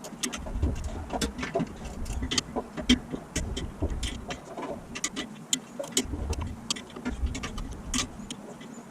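Ratcheting combination wrench clicking irregularly, several clicks a second, as it is worked back and forth to loosen a small bolt holding a washing machine's drive motor, with a few dull knocks of metal.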